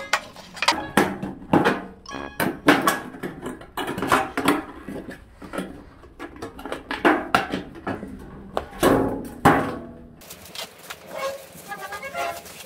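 Thin sheet-metal tin being cut and bent with snips: irregular sharp clicks, cracks and tinny clanks as the metal flaps are snipped and pressed down. The clanking stops about ten seconds in.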